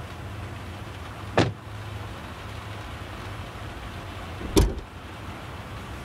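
Two car-body thuds over a steady hiss: an SUV's door slamming shut about a second and a half in, then a heavier clunk as its hood is opened near the end.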